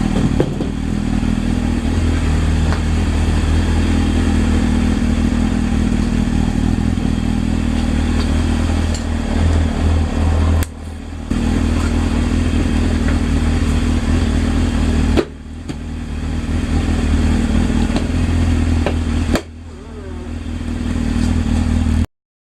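1998 Honda CBR600 F3's carbureted inline-four engine running steadily, now on fresh fuel after its carburetors were drained of dirty fuel. The sound drops abruptly three times and builds back up each time.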